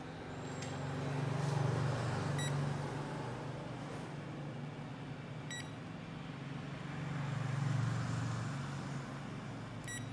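A0 wide-format copier running with a steady low hum that swells twice, while its touch-screen control panel gives three short key-press beeps as menu buttons are pressed.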